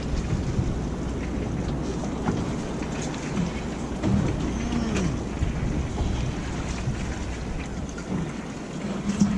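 Steady wind buffeting the microphone over water sloshing against the hull of a small fishing boat, with a few faint ticks.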